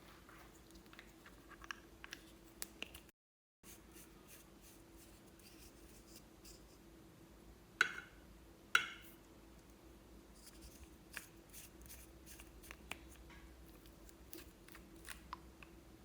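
Quiet handling sounds from slime making: faint scattered clicks and light scrapes over a steady low hum, with two sharper clicks about eight and nine seconds in. The sound drops to dead silence for a moment about three seconds in.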